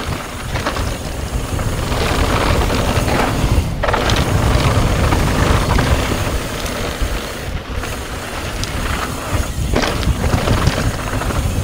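Pivot Firebird full-suspension mountain bike descending a dry dirt trail at speed: tyres rolling over dirt and the bike knocking and rattling over bumps, with heavy wind buffeting on the microphone.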